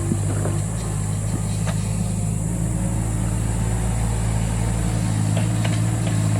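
Excavator's diesel engine running steadily, with a few faint clicks and knocks over it.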